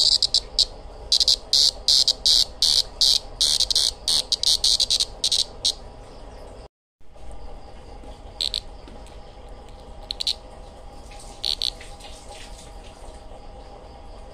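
Green cicada held between the fingers, buzzing in short harsh bursts: a rapid, dense run for about the first six seconds, then only an occasional burst after a brief break. This is the protest buzz a cicada gives when it is handled.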